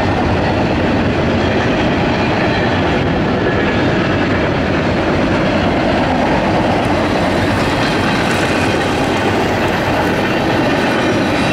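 Double-stack container well cars of a CSX intermodal train rolling past: a steady, loud noise of steel wheels running on the rails.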